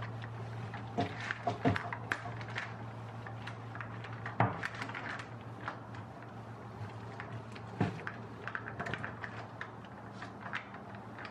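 Scattered light knocks and clicks as boiled potatoes are pressed flat with a glass Weck jar on a baking sheet, over a steady low hum.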